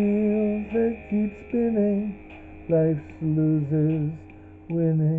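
A man's voice singing wordless held notes in several short phrases, some with a wavering vibrato, over a recorded song playing from a CD, with a faint steady low hum underneath.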